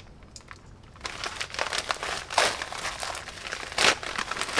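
Plastic mailer bag crinkling as it is handled and pulled open by hand. Two louder bursts of rustling come about two and a half seconds in and near the end.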